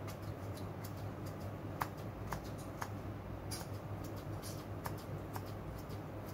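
Kitchen scissors snipping broccoli into small pieces: a series of irregular, sharp snips over a steady low hum.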